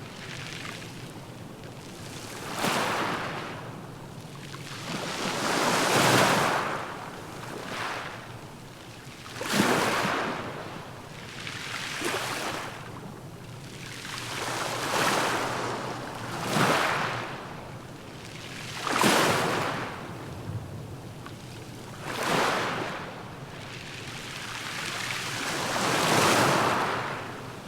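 Small waves surging in and washing back over a beach of round pebbles (mongdol), each surge a hiss of water with the pebbles rattling. About ten swells, one every two to three seconds.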